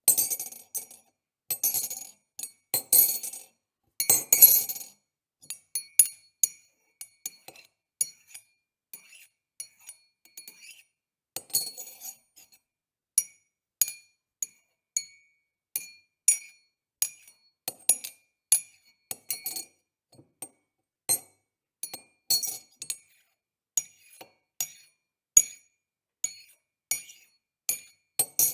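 Spoon stirring in a mug, clinking against its sides with a short ringing tone. The clinks come in quick clusters in the first few seconds and again around the middle, with single clinks about once or twice a second the rest of the time.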